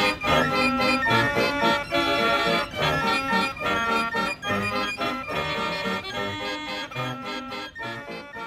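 Pipe fair organ playing a tune with bass notes on the beat and percussion strikes, fading out over the last few seconds.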